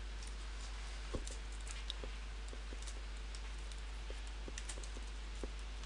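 Faint, irregular taps and clicks of a stylus writing on a pen tablet, over a steady low hum and hiss.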